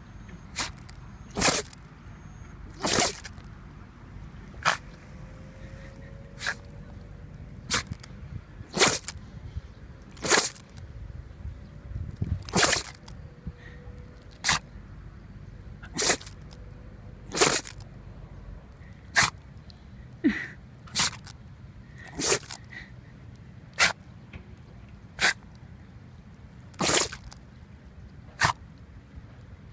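Shiba Inu sneezing over and over, about twenty short sharp sneezes roughly every second and a half, set off by grass; the owner wonders whether it is hay fever.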